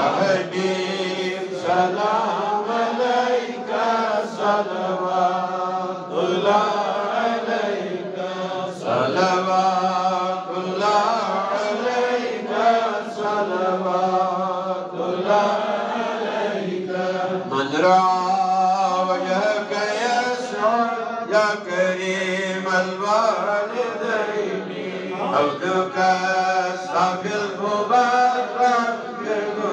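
A man chanting a prayer in a slow melodic voice, amplified through a microphone, phrase after phrase rising and falling, with short pauses between them.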